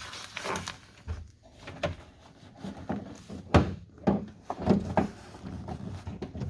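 Clicks and knocks of hands working the door handle's linkage rod and clip inside an opened 2008 Kia Sorento door. The sharpest knock comes about three and a half seconds in.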